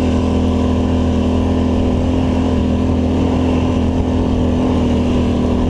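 Polaris Scrambler ATV engine running steadily at an even pitch while riding.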